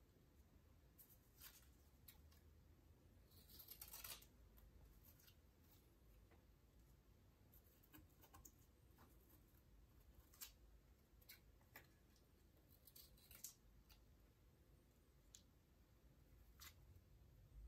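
Faint, scattered snips of scissors cutting scraps of brown paper bag into thin stripes, with light paper handling and a longer rustle about three to four seconds in.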